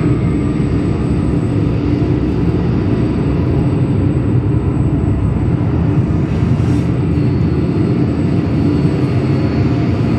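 A loud, steady deep rumbling drone from the show's soundtrack, played over the venue's loudspeakers.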